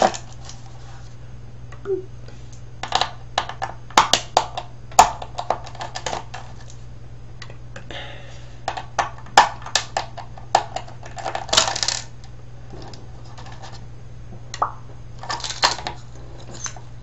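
Scattered sharp clicks and short clatters of small screws and plastic parts being handled and set down while a Logitech keyboard is taken apart by hand, with a longer rattle near the middle. A steady low hum runs underneath.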